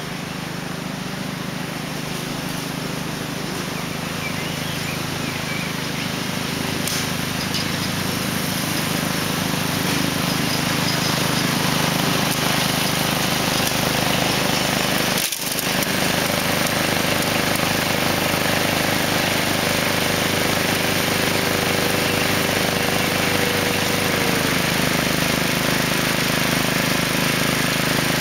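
Quad bike towing a homemade mower driven by a 14.5 hp Briggs & Stratton OHV engine, both engines running and getting louder as they come closer over the first ten seconds or so. Near the end one engine tone drops away while a steady engine sound runs on.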